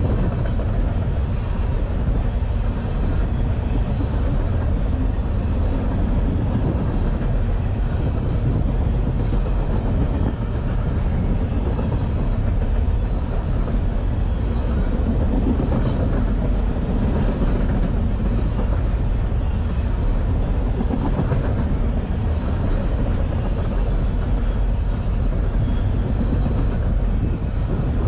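Freight train of intermodal container cars rolling past: a steady, unbroken rumble of steel wheels on the rails.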